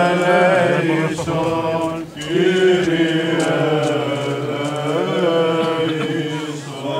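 Greek Orthodox Byzantine chant: voices singing a slow, drawn-out melody with ornamented turns over a steady low held note. The singing breaks off briefly about two seconds in, then resumes.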